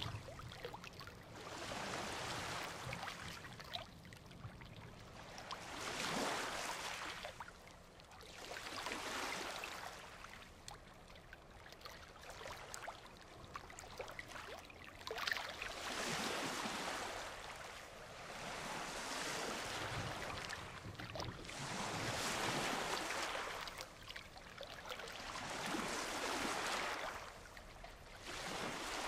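Ocean surf breaking on a beach: waves wash in one after another, each swelling up and fading over a few seconds.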